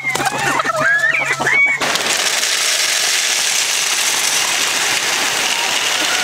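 Chickens clucking and squawking for about the first two seconds, then a steady hiss of dry chicken feed pouring from a bag into a plastic feeder.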